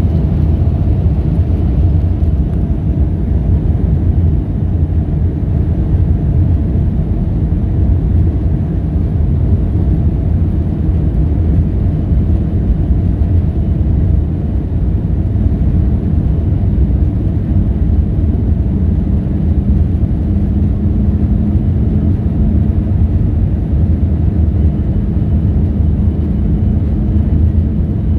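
Boeing 737-400 with CFM56-3 turbofan engines, giving a steady low rumble that neither rises nor falls. A faint steady hum joins about two-thirds of the way in.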